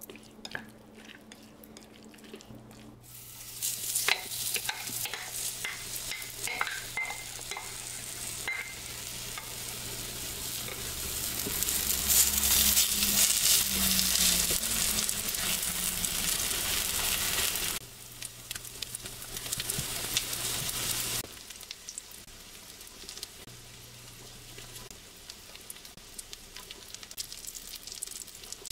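Okonomiyaki batter sizzling in a hot frying pan, starting about three seconds in and growing louder, with a few clicks of a utensil early on. The sizzle drops sharply about two-thirds of the way through and stays fainter after.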